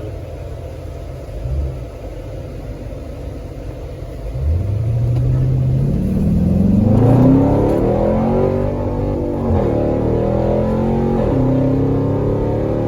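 Dodge Durango's 5.7 Hemi V8, breathing through aftermarket shorty headers and a cold air intake, idles and then, about four seconds in, accelerates hard. Its pitch climbs, then drops twice as the transmission upshifts, climbing again after each shift.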